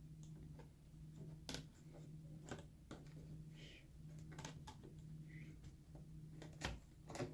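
Faint, scattered clicks and taps of laptop parts being handled as the replacement LCD panel is lifted off the keyboard and set into the lid, over a faint steady low hum.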